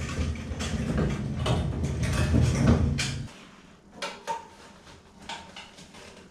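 A loud run of rhythmic, drum-like thumping that stops abruptly about three seconds in, followed by a few light knocks and clicks as a flexible dust-collector hose is pushed onto the bandsaw's dust port.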